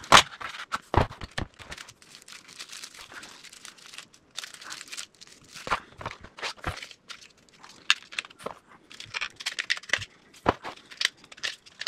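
Small cardboard product box being opened and unpacked by hand: cardboard scraping and sliding, crinkling packaging, and irregular small clicks and knocks as the inner tray and plastic parts are handled and set down.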